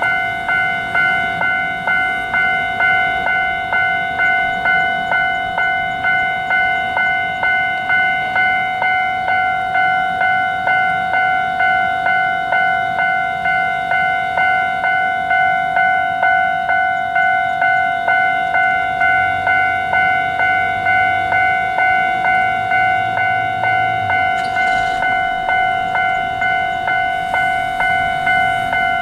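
Japanese level-crossing warning alarm sounding its repeated 'kan-kan' tone, about two to three strikes a second, steady throughout. A faint low rumble comes in for a few seconds past the middle.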